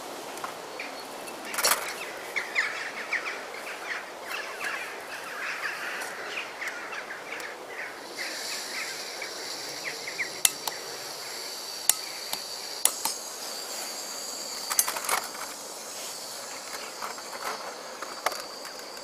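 Small gas canister camping stove being handled and lit: sharp clicks, then a steady hiss of the burning gas from about eight seconds in. Light metal clinks from the steel pot and windshield, and a bird chirps rapidly during the first half.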